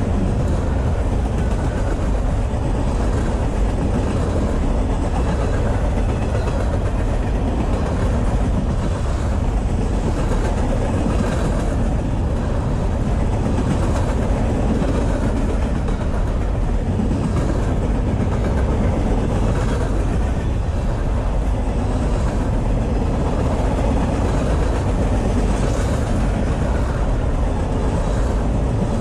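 Empty trash-container freight cars rolling past close by: a steady rumble of steel wheels on rail, with light clacks here and there.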